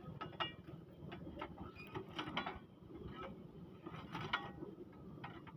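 Faint, irregular metallic clanks and rattles from workers handling a rail trolley (lori) and its machine on the track. Some knocks ring briefly, and the loudest comes a little after four seconds in.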